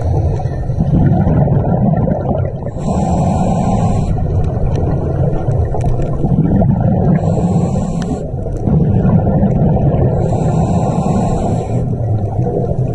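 Scuba diver breathing through a regulator underwater: three hissing inhalations a few seconds apart, each followed by a long rumble of exhaled bubbles.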